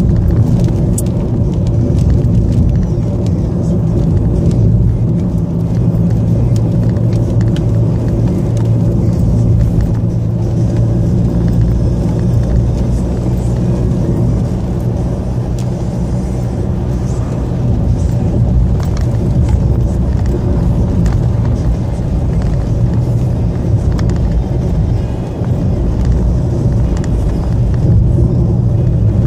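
Car driving at an even speed, a steady engine and tyre drone heard from inside the cabin.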